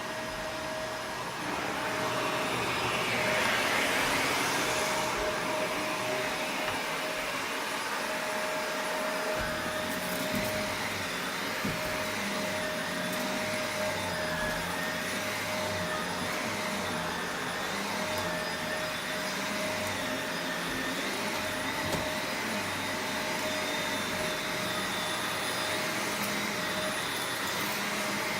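Shark Rotator Professional Lift-Away upright vacuum running steadily while vacuuming, a constant motor whine over rushing airflow, a little louder for a few seconds near the start.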